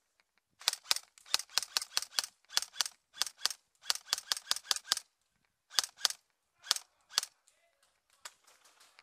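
Airsoft rifle firing rapid single shots, several a second, in strings of a few shots with short breaks. It ends with a handful of spaced single shots.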